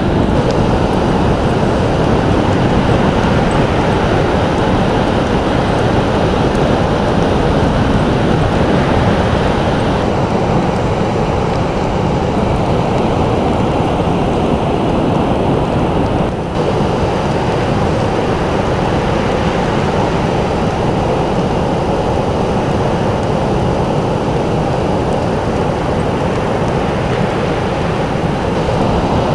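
Steady rushing of fast-flowing water, loud and even, with no rise and fall of waves. There is a brief dip about sixteen seconds in.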